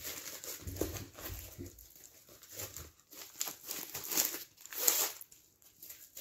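Plastic sleeve and padded mailer bag crinkling and rustling as a rolled canvas is pushed into the mailer and its end is folded over, in irregular bursts that are loudest about four to five seconds in.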